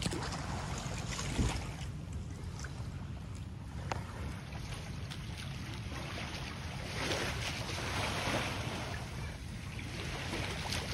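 Shallow sea water lapping against the hull of a moored outrigger boat, with wind rumbling on the microphone; the water swells a little louder about seven seconds in.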